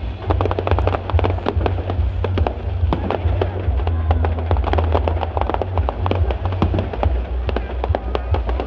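Fireworks display: a dense, continuous crackle of many small pops and bangs from bursting shells, several a second, with no let-up.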